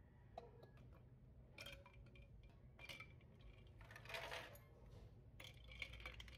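Faint kitchen handling sounds: a few soft knocks and clicks, then a spoon clinking against a drinking glass near the end as it is put into the drink to stir.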